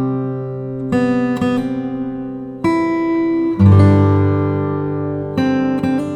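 Background music: acoustic guitar strummed chords, a new chord struck every second or two and left to ring.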